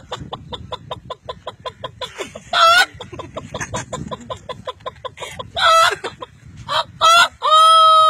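A man imitating a rooster with his voice: rapid clucking, a few short squawks, then one long drawn-out crow near the end.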